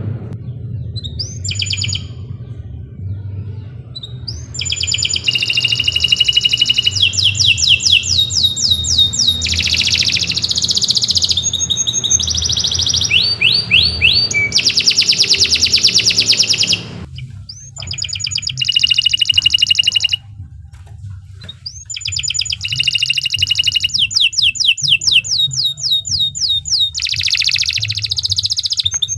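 Domestic canary singing a long, continuous song made of fast trills: rapid runs of repeated high, falling whistled notes. The song breaks off briefly twice in the second half.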